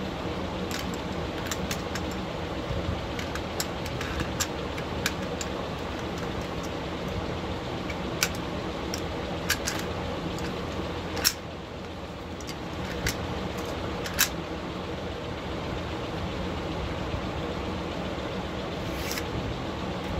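Sharp metallic clicks and clinks of an AK-74 rifle's steel parts being handled and fitted together during field stripping and reassembly, about a dozen scattered clicks with the loudest about eleven seconds in, over a steady background hiss.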